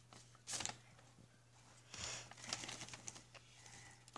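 Faint paper rustling and tearing as a greeting card is pulled from its envelope, in a few short, separate bursts.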